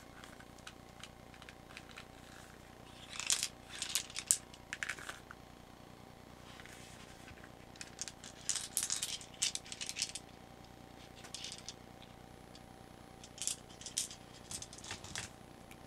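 Metal revolver cartridges, with brass cases and aluminium bullet heads, clinking and rattling together in the hand in several short bursts of clinks as they are taken out of a gas revolver's cylinder and set down.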